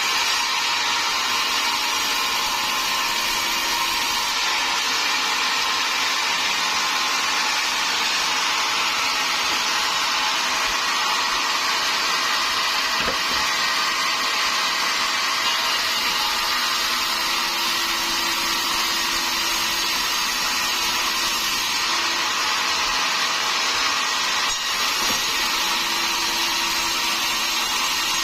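Sawmill saw running steadily as it cuts timber into rafter stock, a constant high-pitched mechanical noise with a faint hum that comes and goes.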